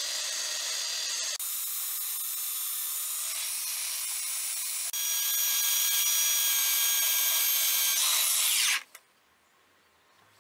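Electric belt sander running against a softwood 4x2, sanding a chiselled trench cut smooth: a steady high-pitched motor whine with the hiss of the belt on wood. It gets louder about halfway through and stops abruptly near the end.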